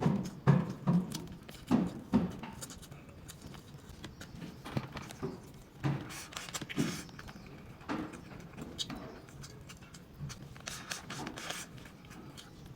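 A person eating close to the microphone: irregular chewing and mouth sounds, louder in the first couple of seconds and again about six seconds in.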